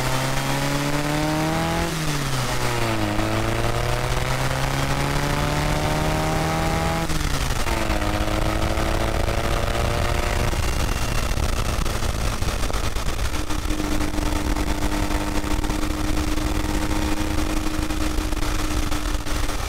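Air-cooled VW Type 1 flat-four engine of a Beetle pulling hard on the road. The revs climb, drop at gear changes about two and seven seconds in, then hold steady and settle lower for the second half, over constant wind and road rush.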